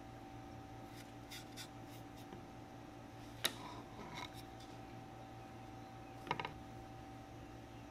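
Wooden ping pong paddle blade and handle pieces handled on a wooden workbench: light clicks, one sharp tap about halfway through and a quick cluster of taps near the end as the paddle is set down, over a faint steady hum.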